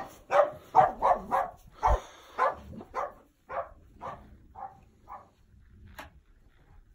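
Dog barking repeatedly, about a dozen barks, quick at first, then slower and fainter until they stop about five seconds in. A single sharp click follows about a second later.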